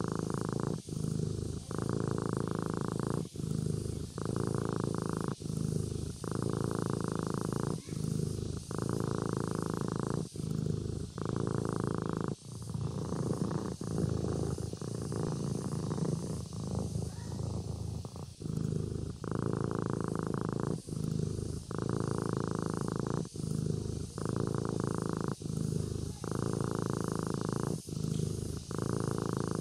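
Sleeping kitten purring, the purr swelling and breaking with its breaths about once a second, smoother for a few seconds a little before the middle.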